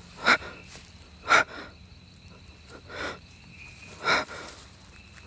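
A man breathing hard in sharp, gasping breaths, four in a few seconds at uneven spacing, the first two the loudest.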